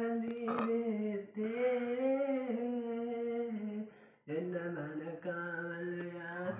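A young man singing solo without accompaniment, holding long, slightly wavering notes, with two short breaks for breath, about one and four seconds in.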